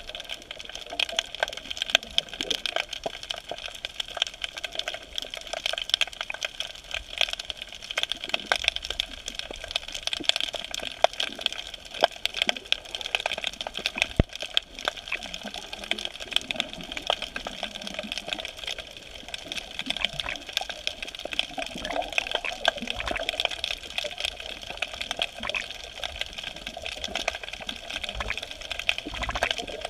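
Underwater ambience picked up by a submerged camera: a continuous dense crackle of small clicks over a steady hiss.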